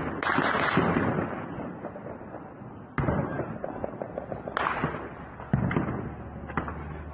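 Gunfire in an armed clash at night: a loud burst at the start, then single sharp reports with echoing tails about three, four and a half, five and a half and six and a half seconds in, with fainter crackling between.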